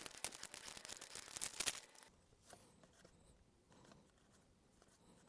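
Faint crinkling and rustling of Pokémon trading cards and booster-pack foil being handled for about the first two seconds, then near silence.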